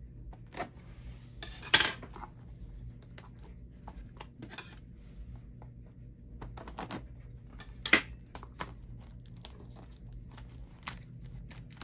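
Scissors snipping and scraping at the plastic shrink wrap on a small cardboard box, with crinkling and tearing of the wrap as it is pulled off by hand. Two sharp knocks stand out, about two seconds in and about eight seconds in.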